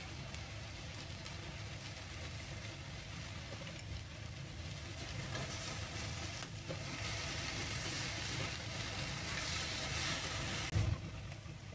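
Goya champuru stir-fry of bitter melon, tofu and seafood sizzling in a frying pan while tofu is crumbled in and stirred with chopsticks. The sizzle grows louder from about halfway through, over a steady low hum, and a single sharp knock sounds near the end.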